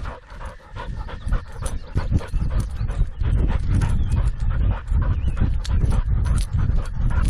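A dog panting while running, its paws thudding on the ground in a quick, uneven rhythm, picked up close by a camera strapped to its own chest harness.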